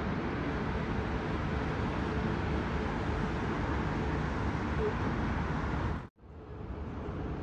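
Steady rushing outdoor background noise, heaviest in the low end, with no clear rhythm or tone. It drops out sharply for a moment about six seconds in and comes back slightly quieter.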